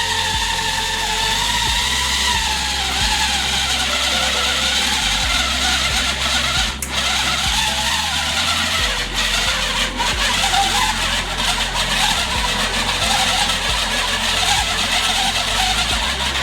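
Electric atta (dough) kneading machine running steadily, its motor humming while it kneads flour into dough.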